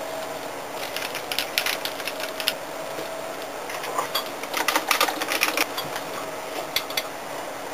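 Quick runs of small plastic button clicks, in three bunches, the busiest near the middle. A steady faint hum runs underneath.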